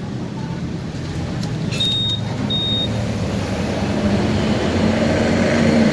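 Two short, high electronic beeps about two seconds in, as the Honda ADV 150 scooter's ignition is switched on. They sound over a steady low mechanical hum that grows slightly louder.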